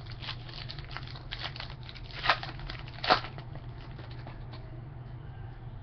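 A foil trading-card pack being torn open and its wrapper crinkling as the cards are pulled out: a run of small crackles with two louder rips, one just after two seconds in and one about three seconds in.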